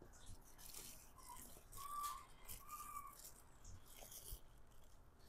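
Faint crinkling of a small plastic baggie and chewing of dried mushrooms, with three short, faint whistle-like tones around the middle.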